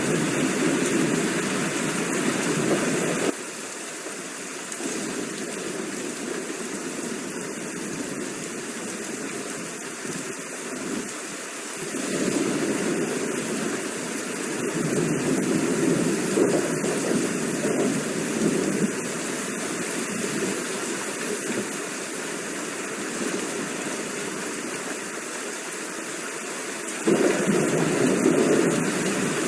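Steady heavy rain, a continuous hiss and wash of falling water. It drops suddenly in loudness about three seconds in, swells louder in the middle and jumps back up near the end, where the recording is spliced.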